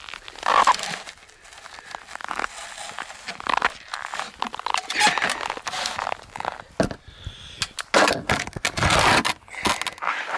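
Close handling noise: winter clothing rustling and snow crunching, with scattered clicks and knocks in irregular bursts, loudest about eight seconds in.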